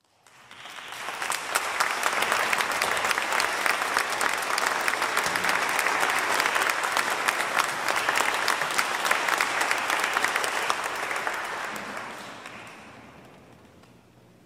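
Audience applauding, building up over the first second or two, holding steady, then dying away over the last few seconds.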